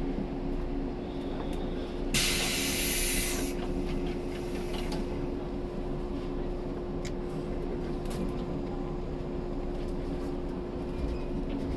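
Cabin sound of a 115-series electric train: a steady hum holding one even tone, with a short, loud burst of air hissing about two seconds in and a few light clicks later on.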